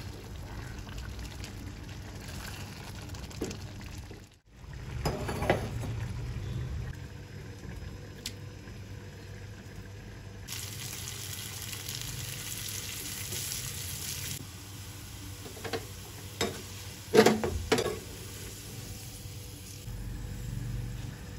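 Sliced onions frying in hot oil in a small pan, a steady sizzle, with a few knocks and scrapes of the cooking spoon against the pan. The loudest of these comes about three quarters of the way through.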